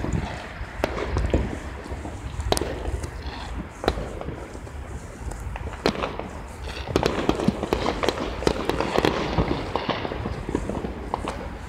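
Fireworks and firecrackers going off: scattered sharp bangs and pops at irregular intervals, busier in the second half.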